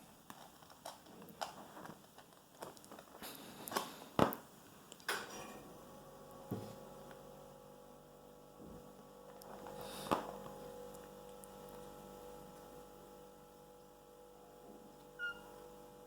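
Light scattered knocks and taps from a red Maine Coon kitten playing, the sharpest about four seconds in. After about five seconds a steady electrical hum sets in, with one thump about ten seconds in.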